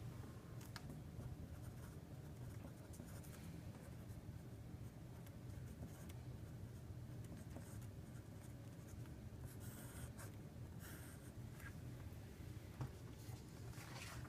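Faint scratching of a pen writing out equations, in short strokes, over a low steady hum.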